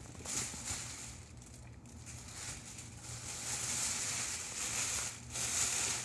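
Thin plastic grocery bag crinkling and rustling as potatoes are put in and the bag is wrapped tightly around them, louder in the second half.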